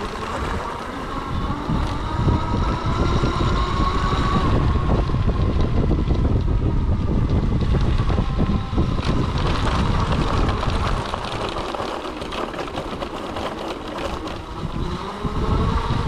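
Electric drive motor of a wheelchair's front-wheel power attachment whining, its pitch rising over the first few seconds as speed climbs. Underneath is a steady rumble of a 20 x 4 inch fat tyre on a gravel track and wind on the microphone.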